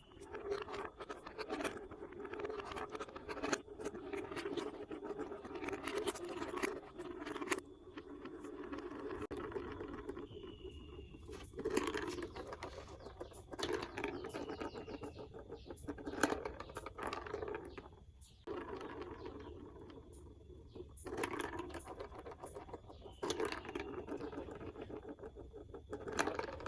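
Marbles rolling and clicking along a plastic building-block marble run: a continuous rolling rattle with many small clicks, broken by a few brief pauses.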